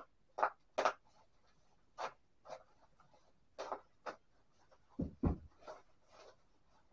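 Bubble-wrap plastic packaging crinkling and rustling in short bursts as it is torn open by hand, with two dull thumps about five seconds in.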